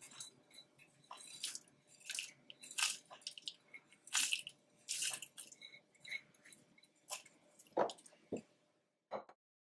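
Dry-roasted whole spices (cumin and coriander seeds) pouring from a dish into a plastic grinder jar onto dried red chillies, pattering and rattling in short spurts. A couple of duller knocks near the end.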